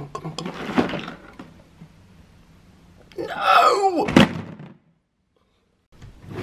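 Lid of a metal tin storage box lifted open with a sharp clunk, followed a couple of seconds later by a loud swooping, falling tone.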